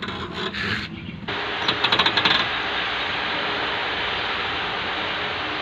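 Piaggio Ape City three-wheeler running with a gravelly grinding and rattling from the wheel, with a quick run of metallic clicks about two seconds in. The mechanic puts the noise down to a loose nut on the wheel bearing assembly.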